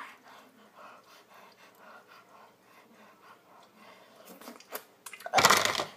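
A girl panting with soft, quick mouth breaths as a hot pickle burns her mouth, then a loud rushing burst of breath about five seconds in.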